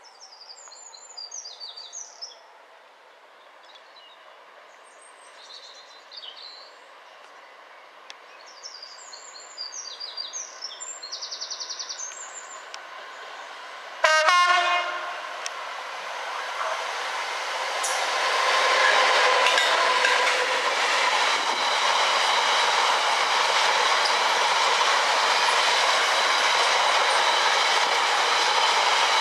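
Class 66 diesel freight locomotive sounding its horn once, briefly, about halfway through, then the train passing close by: a rising, steady rumble and clatter of hopper wagon wheels over the track. Birds chirp faintly before the horn.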